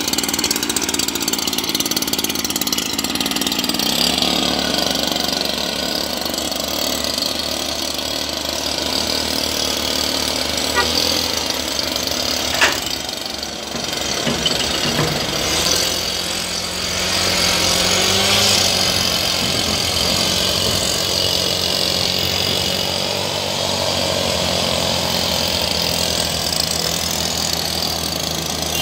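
STIHL backpack mist blower's two-stroke engine running steadily while spraying, with a single sharp click about halfway through.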